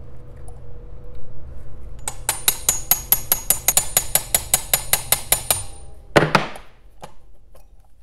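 A small hammer taps a steel pin punch to drive out the accelerator pump lever pin on a Rochester Quadrajet carburetor. There are about twenty quick, even, ringing metallic taps, roughly six a second, starting about two seconds in. A single heavier knock follows about six seconds in.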